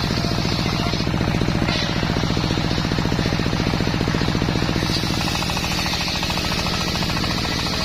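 Engine of a homemade circular-saw sawmill running steadily with a fast, even chugging beat.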